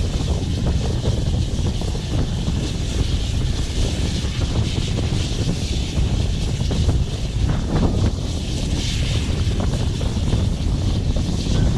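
Wind buffeting the microphone over the steady running rumble of the GWR Manor-class 4-6-0 steam locomotive 7828 Odney Manor, heard from on top of its tender while under way.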